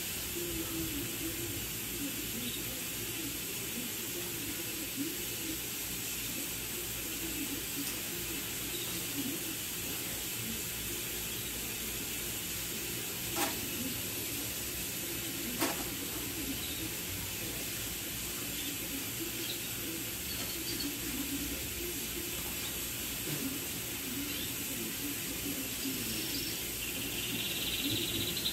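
Steady background hiss with two short clicks in the middle, about two seconds apart. Faint bird chirps come in near the end.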